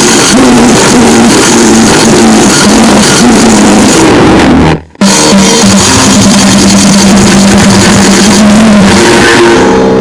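Grindnoise/noisecore recording: harsh, heavily distorted noise at full volume with a few held, buzzing pitched tones. It cuts out abruptly for a split second about halfway, then slams back in.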